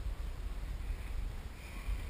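Low, unsteady rumble of wind on the microphone, with faint hiss above it.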